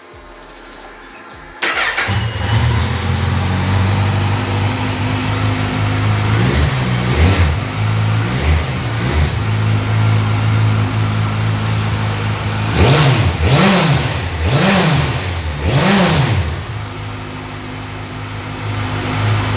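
2014 Kawasaki Z1000SX's inline-four engine firing up about two seconds in and idling. It is blipped lightly a few times, then revved four times in quick succession before settling back to a steady idle.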